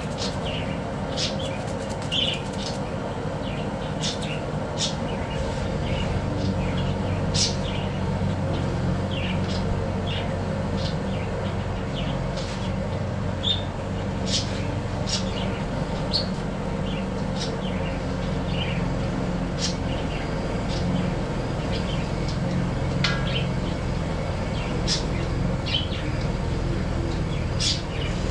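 Small birds chirping in short calls over a steady low hum.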